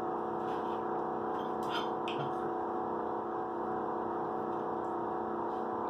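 A steady hum made of several held pitches, like a running appliance, with a few faint clicks in the first couple of seconds.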